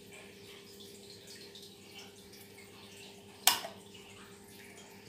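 Water trickling and dripping over a steady low hum, with one sharp click about three and a half seconds in.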